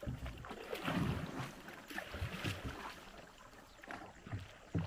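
A wooden canoe being paddled with a long wooden paddle: water splashing and swirling around the blade and hull with each stroke, with a few short, sharp knocks.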